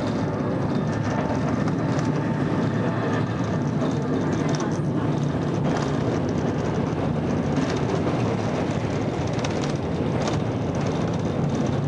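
A funicular car running down its steep rail track: a steady rumble with a faint hum, heard from inside the glazed cabin.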